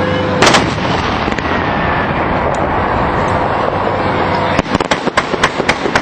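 Fireworks salute going off: one loud bang about half a second in, then a quick string of sharp cracking pops over the last second and a half.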